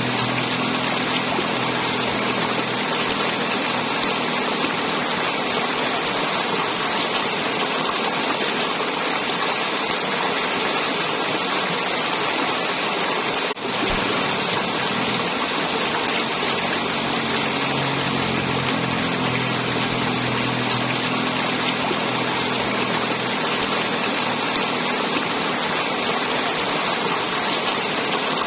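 River water flowing and gurgling steadily, a dense, even rush with a low hum underneath. The sound drops out very briefly about halfway through.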